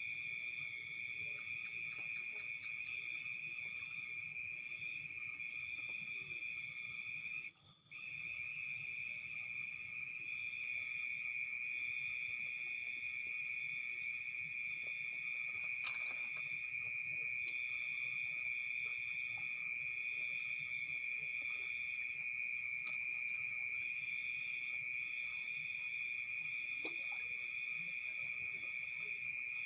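Chorus of night insects: a steady high-pitched trill, with a faster pulsing trill above it that comes and goes in spells of a few seconds. A single sharp click is heard about halfway through.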